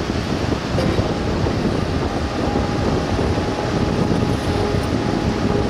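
Tracked launch-and-recovery tractor carrying a Shannon-class lifeboat, driving across wet sand: a steady engine and track rumble with a thin, steady whine over it.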